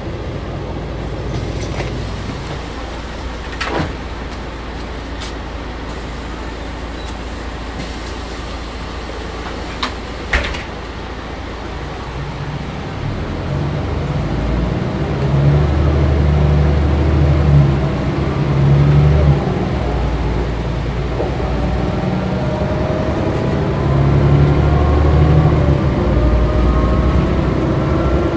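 Interior of a 1997 Mercedes-Benz O405 GN2 articulated bus on the move: its rear-mounted diesel engine running with body rattles and clicks, and two sharper knocks, one a few seconds in and one about ten seconds in. From about halfway the engine pulls harder and louder, and near the end its pitch rises steadily as the bus accelerates.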